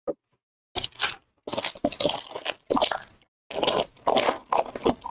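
Plastic wrapper of a trading card pack crinkling and tearing as it is pulled open by hand, in irregular crackly bursts with short pauses between.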